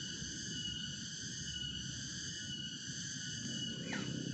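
Cicadas droning in a steady chorus, several high pitches held together without a break. Near the end a brief falling whistle drops through it.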